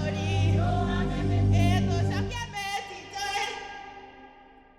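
Closing music: voices singing with a wavering vibrato over a steady bass. The bass drops out about two and a half seconds in, and the singing fades out over the last couple of seconds.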